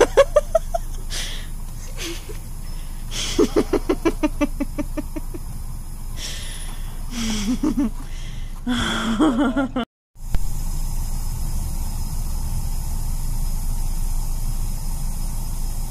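Bursts of muffled, stifled laughter inside a car, one a quick run of about eight pulses a second, over the steady low hum of the idling car. The sound cuts out completely for a moment about ten seconds in, after which only the low hum remains.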